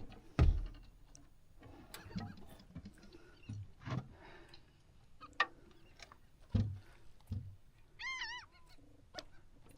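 Knocks and thuds of gear against the boat, the first, about half a second in, the loudest. About eight seconds in, a bird gives one short call of several quick notes.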